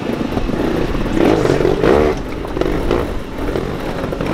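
Trials motorcycle engine revving in short bursts, rising and falling, as the bike is ridden up a rocky section.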